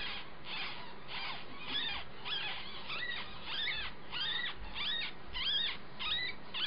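Nine-day-old rabbit kits squeaking: a steady run of short, high-pitched squeaks, each rising and falling in pitch, about two a second.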